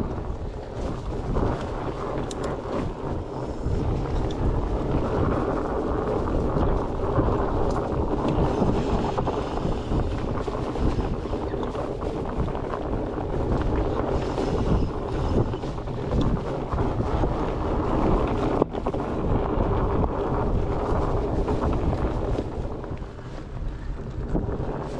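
Wind rushing over the microphone with the steady rumble of fat-bike tyres rolling down a dirt trail. It dips briefly near the end.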